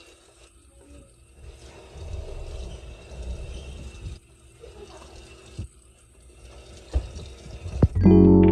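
Kitchen tap running a thin stream into a stainless steel sink while a sponge scrubs the basin, with a few clicks near the end. Music starts just before the end.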